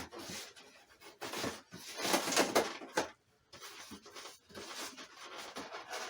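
Packing tape being pulled off and the model's packaging handled, with cardboard and plastic rustling and scraping in irregular bursts that break off briefly about three seconds in.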